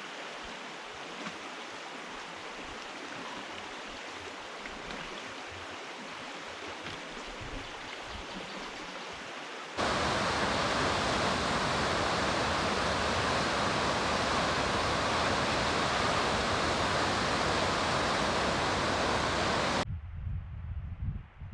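Steady rushing of flowing water, which becomes abruptly louder and fuller about halfway through. Near the end it cuts to a low, gusty rumble of wind on the microphone.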